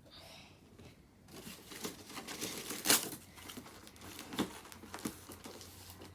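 Present packaging being torn and crinkled open by hand: quiet at first, then about a second in an irregular crackling and ripping starts, with a few sharper, louder rips.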